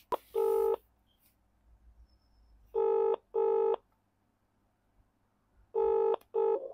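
Ringback tone of an outgoing phone call: the British double ring, pairs of short steady tones repeating about every three seconds, with a click just before the first ring. The last ring is cut short as the call is answered.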